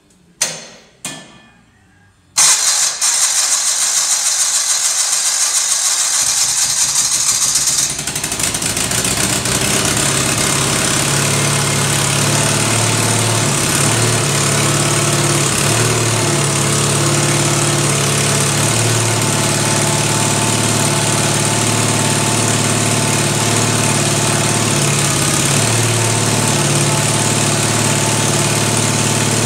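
1974 Case 646 garden tractor's engine being started: two knocks, then the starter cranks with a loud hiss for several seconds until the engine catches and settles into a steady run, its speed wavering a little. It is the first time the engine has run after sitting for years and having its cracked oil pan replaced.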